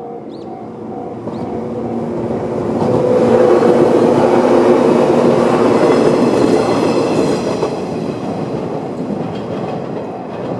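Shinano Railway 115-series electric train passing over a level crossing, growing louder to a peak a few seconds in and then fading. The crossing's electronic warning bell, the JR standard tone, rings in a steady repeating beat, drowned out while the train is loudest and heard again as it goes away.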